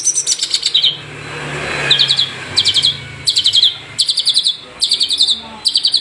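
Long-tailed shrike (cendet) song: short, fast chattering phrases of rapidly repeated high notes, coming about every 0.7 s. A rising hiss swells between phrases about a second in.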